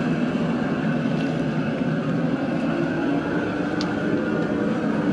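Outdoor propane burner under a large stockpot, its flame burning with a steady, even roar as it heats the seasoned water of a seafood boil back up to a boil.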